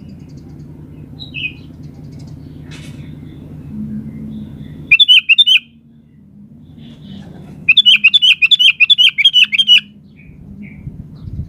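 Sooty-headed bulbul (kutilang) singing: a short burst of rapid repeated chirps about five seconds in, then a longer run of fast repeated chirps lasting about two seconds, over a low hum.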